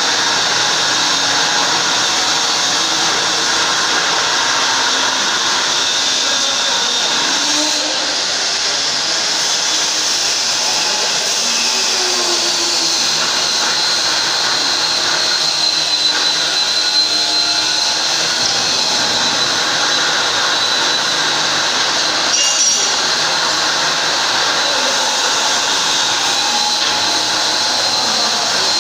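Power tool motor running steadily with a high whine that wavers slightly in pitch.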